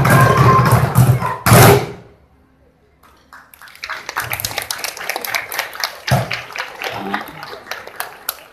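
A group drum performance with music ends on a final loud hit about a second and a half in; after a brief pause the watching crowd breaks into applause.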